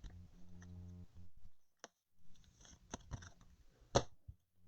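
Trading cards being handled: soft rustling with a few sharp clicks, the loudest near the end.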